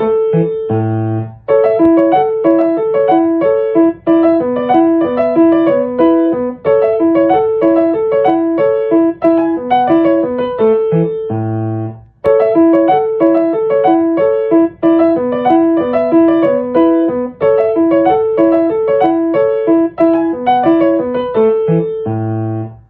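Background music: a piano or electric-piano melody of steady repeating notes, the same phrase played twice, ending abruptly.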